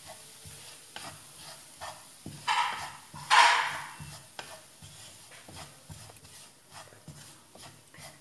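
Wooden spatula stirring and scraping onion and spice masala around a nonstick frying pan, about two strokes a second, with two louder scrapes about two and a half and three and a half seconds in.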